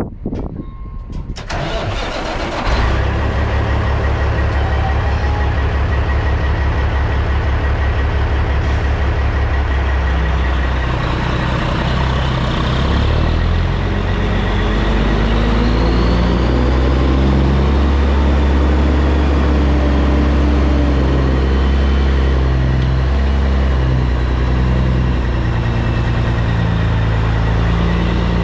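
Caterpillar C15 diesel engine of a 2006 Peterbilt 379 big rig running loud and close after a few clicks in the first couple of seconds: first an even idle pulse, then from about ten seconds in the revs rise and wander as the truck works the rig at low speed, with a brief rising whistle around twelve seconds.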